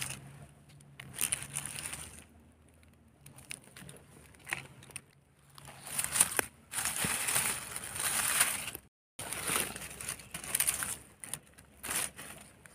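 Dry fallen leaves crackling and crunching as a hand pushes through the leaf litter to pick a mushroom, in irregular bursts that grow louder and denser in the second half.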